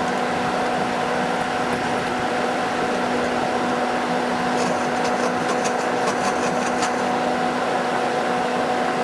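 Air-conditioner outdoor unit running, picked up from on top of the unit: a steady fan rush with a compressor hum carrying a few steady tones. A run of light ticks comes about five seconds in.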